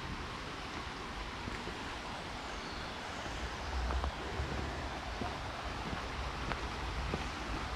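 Steady rush of the flowing river, with wind buffeting the microphone about four seconds in.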